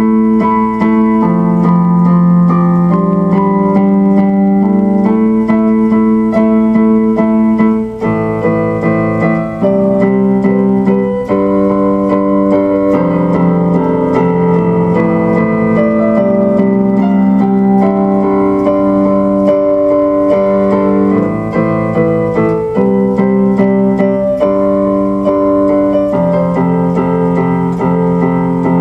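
Instrumental background music: sustained electric-keyboard chords that change every second or two.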